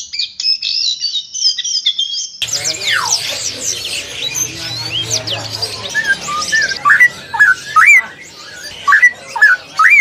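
A small caged songbird sings a high, fast twittering song that breaks off suddenly about two seconds in. Then many caged birds call together, and over them a straw-headed bulbul sings loud, rich, whistled phrases that swoop up and down, from about seven seconds in.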